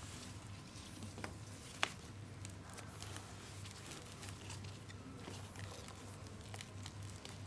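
Faint handling noises: small clicks and rustling as inflation pump hoses are fitted onto the anti-shock garment's valve connectors and the inline valves are worked, with two sharper clicks about one and two seconds in, over a steady low hum.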